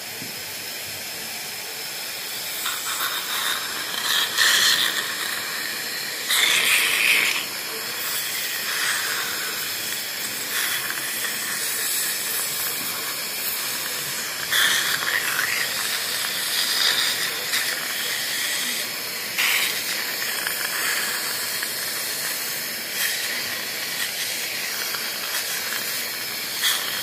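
Dental suction hissing steadily in the patient's mouth during tartar removal, with louder surges every few seconds.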